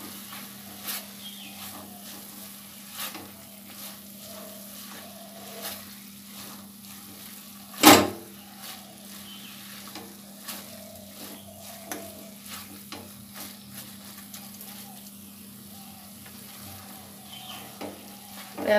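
Silicone spatula stirring and scraping a moist coconut and chhana filling around a non-stick pan, with a soft sizzle as the sugar syrup cooks off. A single sharp knock about eight seconds in.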